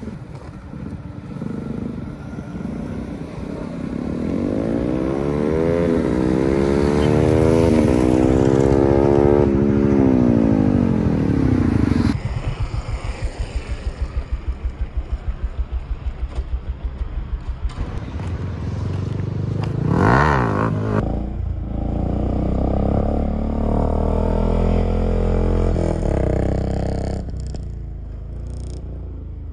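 Motorcycle engines revving up and down in rising and falling sweeps, then running with a steady rhythmic pulse. There is a brief loud rise and fall about twenty seconds in.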